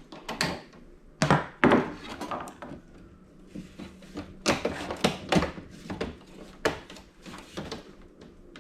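Irregular knocks and clatter of hard plastic TV casing and hand tools being handled while a flat-screen TV is taken apart, the loudest knocks about a second and a half in.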